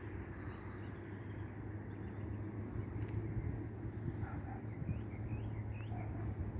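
Outdoor ambience: a steady low rumble, with a few short rising bird chirps about five seconds in.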